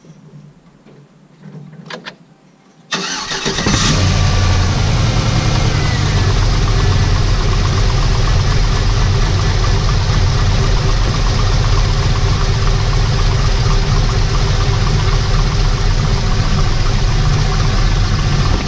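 Cammed 6.0 L LS2 V8 of a Chevrolet Trailblazer SS cranking and catching about three seconds in, then idling steadily with no grinding. This is the sign that the repair of the backed-out bolt behind the pulley has cured the noise.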